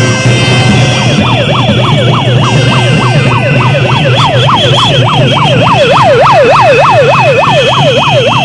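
Siren wailing rapidly up and down, about three sweeps a second, starting about a second in, over loud protest din with steady high tones.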